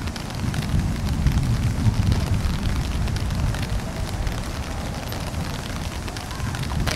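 Low, uneven outdoor rumble that rises and falls without any clear beat or pitch.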